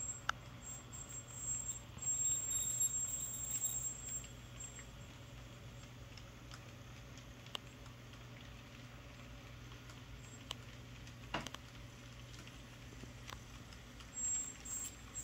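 N scale model freight train running on track: a steady low hum from the locomotive's motor, with scattered light clicks of the small wheels over the rails. A thin high whine sounds about two to four seconds in.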